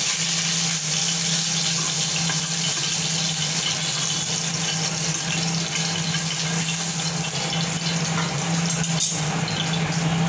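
Fish frying in hot oil in a steel pan: a steady sizzle.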